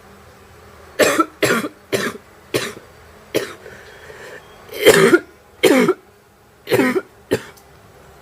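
A woman's mild, wet, barking cough brought on while smoking: about nine coughs in three fits, a run of five, then two, then two after short pauses.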